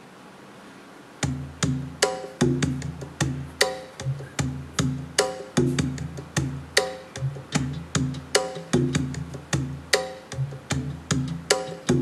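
Music played through a Creative Sound Blaster Roar SR20 portable speaker and picked up by a camera's built-in microphone. The song's intro starts abruptly about a second in, after faint hiss, with an even beat of sharp knocking, plucked notes, about two and a half a second, with bass under each.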